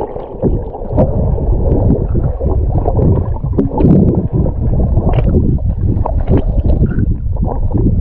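Underwater sound picked up by an action camera held below the surface: muffled water rushing and gurgling as a swimmer moves through the sea, a steady low rumble with scattered faint clicks and no clear high sounds.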